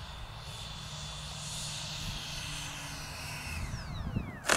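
64 mm electric ducted fan of an FMS Futura model jet running at low throttle while landing and rolling out on grass, a faint high whine that falls in pitch near the end as the fan spools down.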